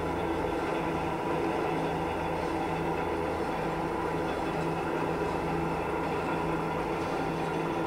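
Marvel Series 8 Mark II vertical bandsaw running without a workpiece, its 2 HP motor and band drive turning the blade while the saw head feeds: a steady mechanical hum with several steady tones.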